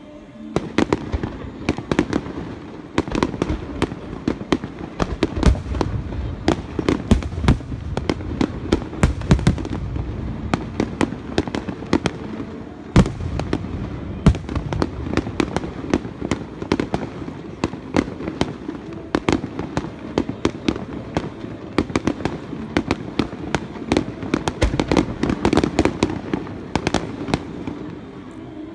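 Aerial fireworks going off in a rapid, dense barrage of sharp bangs and crackles, several reports a second. It starts suddenly just after the beginning.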